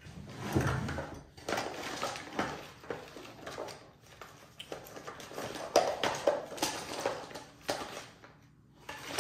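Small objects clattering and knocking with rustling as someone rummages through a workbench drawer, irregular and continuous, falling quiet shortly before the end.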